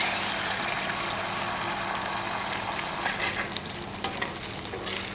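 Beaten eggs sizzling steadily as they fry in hot oil in a pan, with a few faint clicks. The sizzle eases a little near the end.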